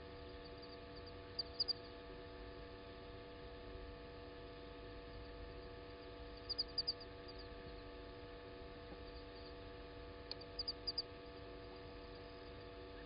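Steady electrical hum with several fixed tones. Three times, a quick run of three or four short, high-pitched chirps cuts through it.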